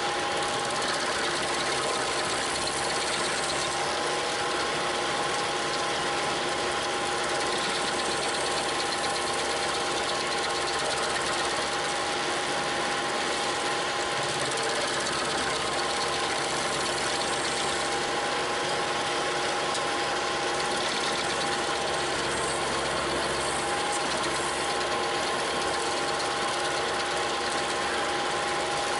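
Diesel engine of a Bobcat T300 compact track loader running steadily, powering the hydraulics of an SG60 stump grinder attachment, with a steady high whine over the engine noise.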